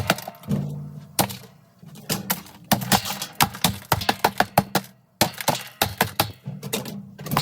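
Hammer blows on a seized plastic washplate in a Whirlpool top-load washer basket: a quick, uneven run of sharp strikes, busting the plastic to break the washplate free.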